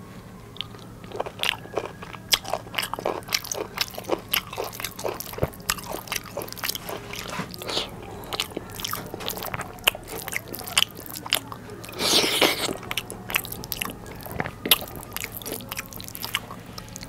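Close-miked chewing of hand-fed biryani rice: a steady run of short, sharp wet mouth clicks and smacks, with a louder noisy burst about twelve seconds in. A faint steady low hum sits underneath.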